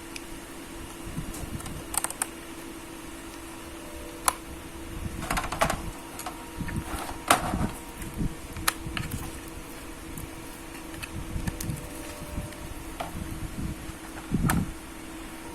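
Scattered small clicks and taps of hands handling small laptop parts, a few sharper knocks among them, over a steady low hum with one constant tone.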